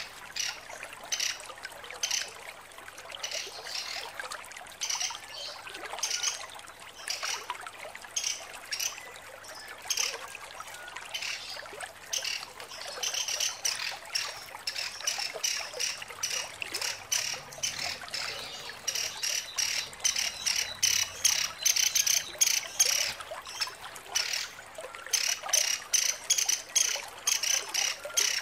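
Female pelatuk sampit, a caged woodpecker, giving a long string of short, sharp, high call notes in quick succession. The notes come faster and louder from about halfway through.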